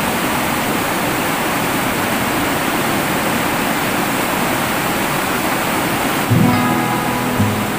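Steady rush of a fast, rocky river's rapids. About six seconds in, background music comes in over it.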